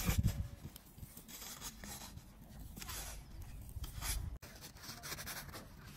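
A plastic toy shovel scraping and scooping into sand, several separate scrapes.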